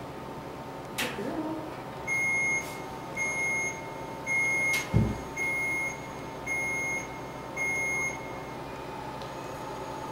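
Companion therapy laser unit beeping six times, short even beeps about one a second, the tone such lasers give while the beam is emitting. A click about a second in and a low thump midway.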